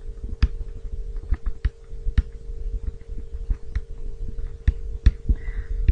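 Pen stylus clicking and tapping on a writing tablet as a word is handwritten: irregular sharp clicks, a few a second, over a faint steady electrical hum.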